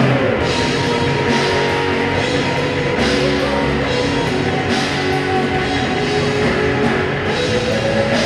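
Live rock band playing: a drum kit with cymbal crashes every second or two under held electric guitar notes.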